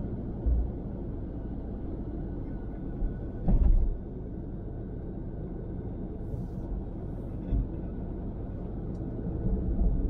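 Steady road and tyre rumble heard from inside a moving car, with a few brief low thumps, the loudest about three and a half seconds in.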